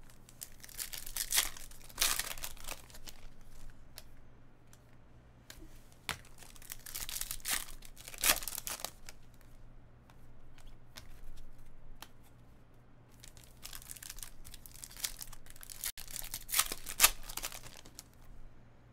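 Topps Chrome baseball card pack being torn open, the wrapper crinkling, and the cards then slid and flipped through in the hands. It comes in several bursts of rustling with a few sharp clicks.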